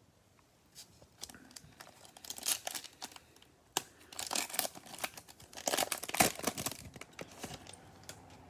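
Foil wrapper of a pack of Bowman baseball cards being torn open and crinkled: an irregular run of tearing and crackling that starts about a second in.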